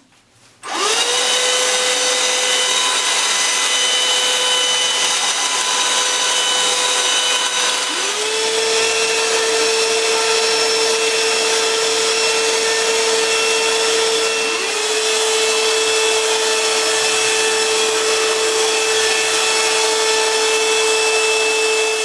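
TDL VC 638WP vacuum cleaner switched on, its motor spinning up within a second into a loud, steady high whine. About 8 seconds in and again about 15 seconds in, the whine dips in pitch and climbs back.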